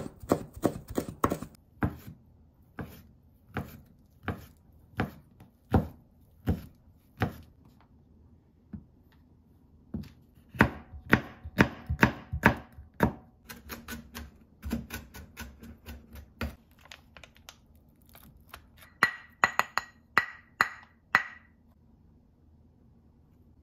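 Kitchen knife chopping food on a wooden cutting board: runs of quick strokes, at times several a second, broken by pauses.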